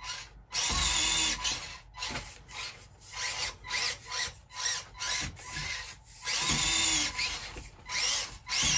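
Micro 1/24-scale RC crawler's small electric motor and gears whining in repeated throttle bursts, stopping and starting as it works its way up a rock step.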